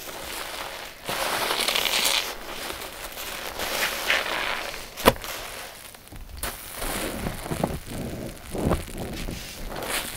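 Wet sponges squeezed by hand, several squeezes one after another, with one sharp click about five seconds in.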